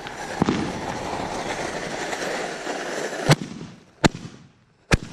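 Consumer aerial fireworks going off: a continuous crackling hiss of bursting stars for the first three seconds or so. Then sharp, loud bangs of shells bursting overhead come about three seconds in and twice more, roughly a second apart.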